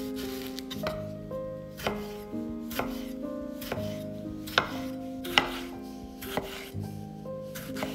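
Chef's knife slicing a tomato on a wooden cutting board, the blade knocking on the board about once a second.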